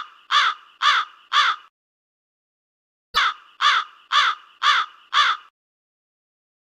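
A crow cawing in two series of about five caws each, roughly two caws a second, with a pause of about a second and a half between the series.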